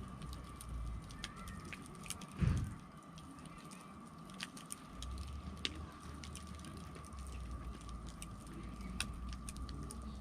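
Wood campfire crackling with scattered small sharp pops, and one dull thump about two and a half seconds in.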